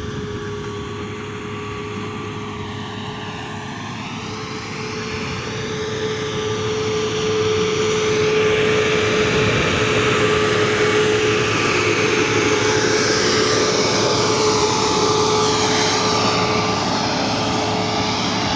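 Hidromek MG 330 motor grader's diesel engine running under load as its blade cuts into hard soil, with a steady whine over the engine. It grows louder about seven seconds in and stays loud.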